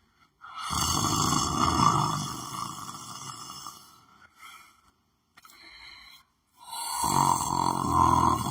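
A person snoring while asleep: two long snores of about three seconds each, with fainter breaths in the pause between them.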